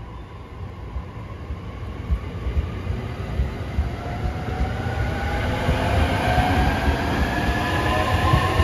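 E231-1000 series electric train departing and picking up speed. The VVVF inverter and traction motors whine in several tones that climb steadily in pitch from about halfway through, over the low rumble of the wheels on the rail, and the whole sound grows louder as the cars pass close by.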